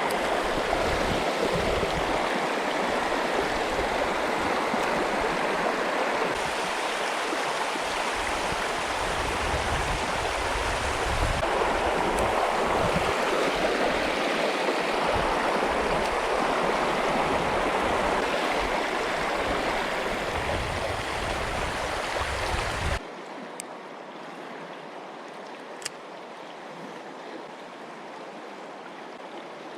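Mountain river water rushing over rocks, a steady loud noise. About 23 seconds in it drops abruptly to a much quieter hiss.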